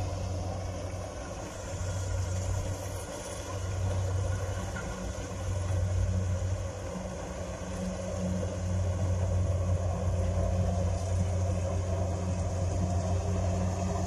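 Steady low engine rumble, slowly swelling and easing in level.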